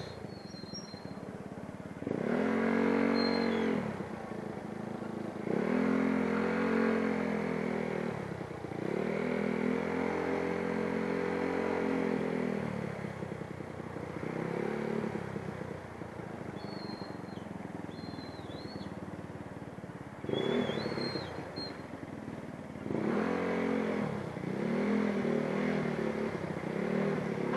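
Motorcycle engine pulling away and easing off again and again while riding through slow traffic: the pitch climbs and drops in several throttle pulls of two to four seconds each, over a steady background of traffic and road noise.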